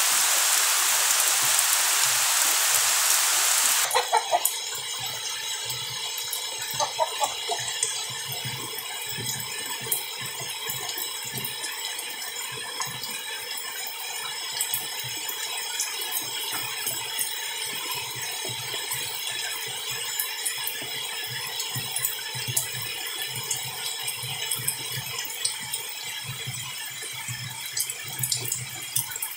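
Steady rain hiss for about the first four seconds, then an abrupt drop to a quieter scene. After that come many scattered dripping taps and clicks over faint, steady high-pitched tones.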